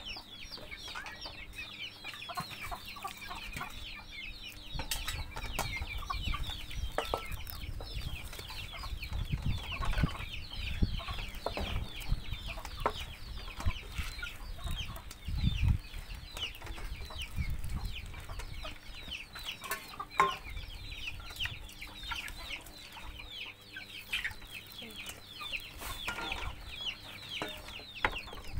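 Chickens calling: a steady stream of short, high, falling cheeps, several a second, with a few low thumps.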